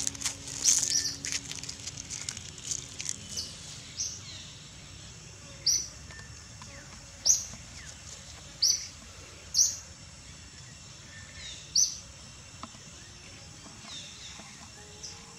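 Bird chirping: a short, high chirp repeated every second or two over a low, steady background, with a denser scatter of chirps and clicks in the first few seconds.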